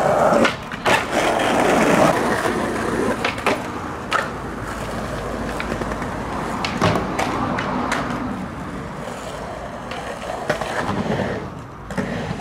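Skateboard wheels rolling on pavement, with about nine sharp clacks of the board hitting the ground spread throughout: tricks being popped and landed. The rolling is loudest in the first two seconds.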